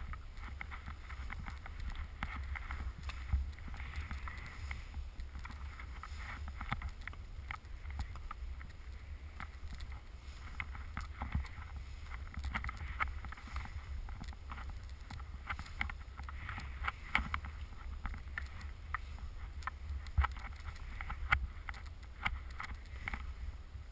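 Skis running through powder snow in downhill turns, a rushing hiss that swells and fades with each turn, over a steady low wind rumble on the microphone. Scattered sharp clicks and knocks come through, loudest near the end.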